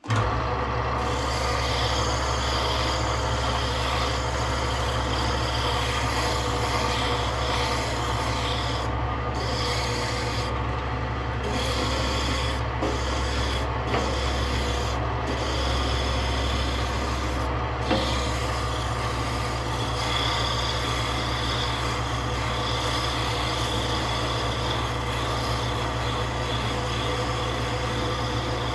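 A woodworking power tool running steadily against wood: a constant motor hum under a continuous rubbing, rasping noise, with a couple of small clicks partway through.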